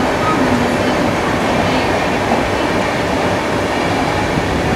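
Indian Railways passenger coaches passing at speed close by: a steady, loud rumble of wheels running on the rails.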